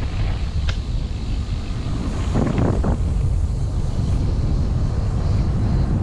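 Wind rushing and buffeting over the microphone while riding downhill, with a few brief, faint higher-pitched sounds about a second in and near the middle.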